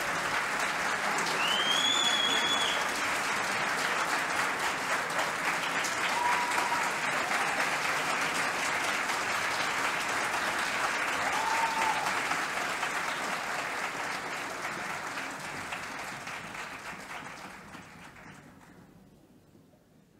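Concert audience applauding steadily, the clapping fading away over the last few seconds.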